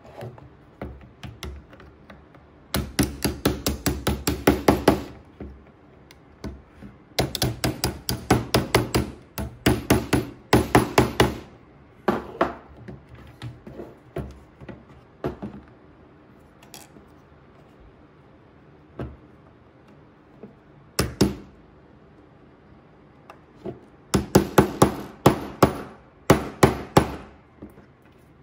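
A soft-faced mallet tapping wooden pieces into place on a square IKEA LACK table leg. It comes in several bursts of quick blows, with pauses between them.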